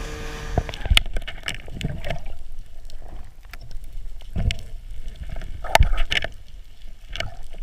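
A boat engine runs with wind on the microphone for under a second, then the sound turns to underwater noise: a muffled low water rumble with scattered short clicks and knocks.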